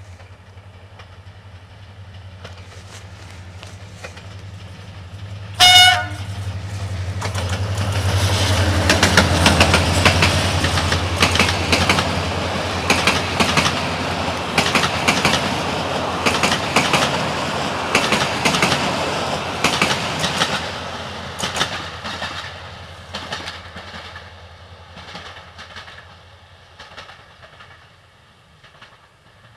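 A CFR Electroputere 060-DA Sulzer diesel-electric locomotive approaches with its engine droning low and gives one short horn blast about six seconds in. It then hauls its passenger coaches past, the wheels clattering rhythmically over the rail joints, and the sound fades away near the end.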